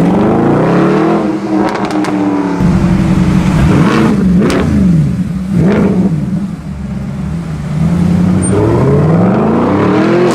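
Mercedes-Benz SLS AMG's 6.2-litre V8 through an aftermarket exhaust, revving up and down repeatedly. The pitch climbs in the first second, blips up and down several times in the middle, and rises again near the end, with a few sharp pops between revs.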